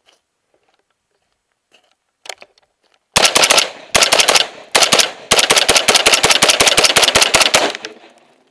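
AR-15 rifle firing, heard from a camera mounted on the rifle itself: about three seconds in come a few spaced shots, then a fast, steady run of shots that stops shortly before the end with a brief echo dying away.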